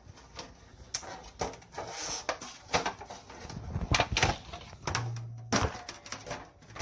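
Scattered clicks, knocks and rustles of a baking pan being handled as its sticker is peeled off, busiest about four seconds in, with a brief low hum about five seconds in.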